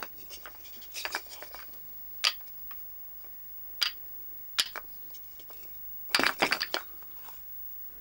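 Foley sound effects made by hand at a microphone: irregular short clicks and knocks from small hard objects, a wooden block among them, struck or clicked together, with a quick flurry of clicks about six seconds in.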